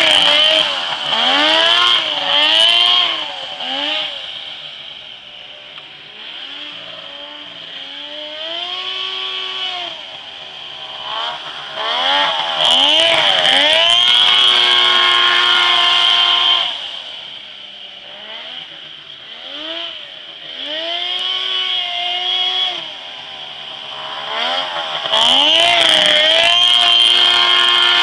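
Polaris three-cylinder snowmobile engine in an offroad buggy, revving up and down with the throttle as the buggy is driven around. It is loud as it comes close, three times, and fades in between, with a steady high whine over the engine note when it is near.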